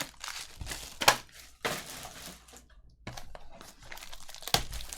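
Trading-card pack wrappers crinkling and tearing open as the cards are handled, in irregular rustles with sharp crackles, the loudest about a second in and near the end.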